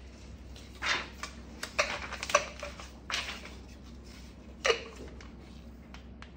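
A roll of plastic film being slid onto the holder's metal rod and pushed into its plastic end holders: a series of short knocks, clicks and scrapes, the sharpest a little under five seconds in.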